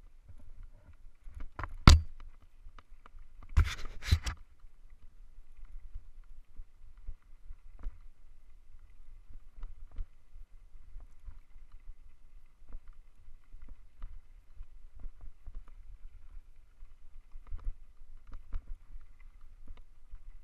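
Hardtail mountain bike clattering and rattling over a rocky gravel road on a fast descent, over a low rumble of wind and tyres. There are sharp knocks about two seconds in and a short run of harder jolts around four seconds.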